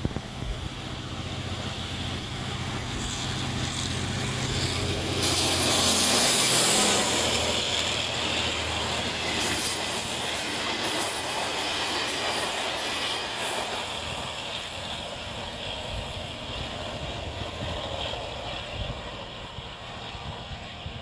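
Egyptian diesel-hauled passenger train passing close by. The locomotive's low engine hum grows and passes about six seconds in. The coaches then roll past with a steady rushing of wheels on rail and scattered clicks and squeals, fading slowly toward the end.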